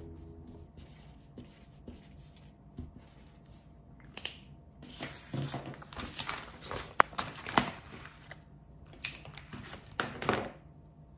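A last acoustic guitar strum dies away at the start. Then papers and stationery are handled on a desk: sheets rustle and slide, and pens and a notebook are tapped and set down. The sharpest click comes about seven seconds in.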